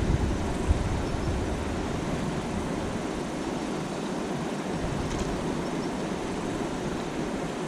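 Steady rush of a shallow river running over rocks, with a low rumble of wind on the microphone that eases after about three seconds.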